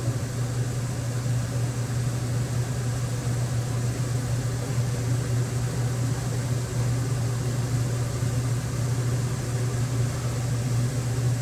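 Steady low mechanical hum with an even hiss over it, like a room fan or air conditioner running.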